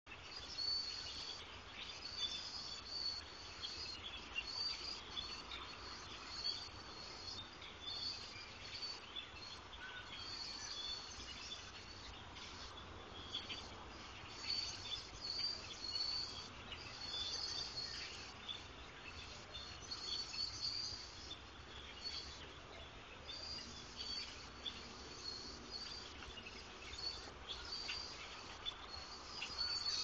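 A huge flock of birds calling from trees: a dense, continuous chatter of many short, high calls overlapping one another, swelling and easing in loudness.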